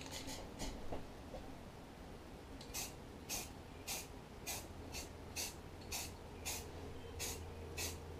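Aerosol can of Rust-Oleum camouflage spray paint giving about ten short hissing bursts, roughly two a second, starting about three seconds in.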